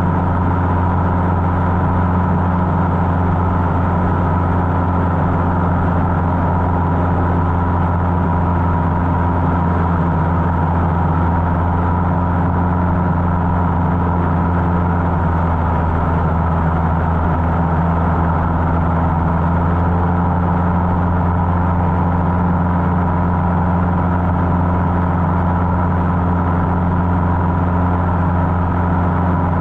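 Cessna 150's four-cylinder Continental O-200 engine and propeller droning steadily in flight, heard inside the cabin, with an even pitch and level throughout.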